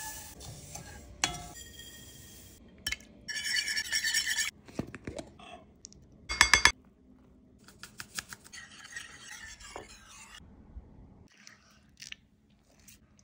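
Metal utensils clinking and scraping against mixing bowls as batter is stirred, in several short spells, the loudest a quick run of clinks about halfway through.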